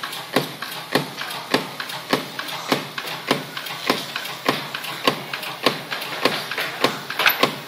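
SBM 320 screen protector die-cutting machine running automatically: a steady rhythm of sharp clacks, a little under two a second, with lighter clicks between.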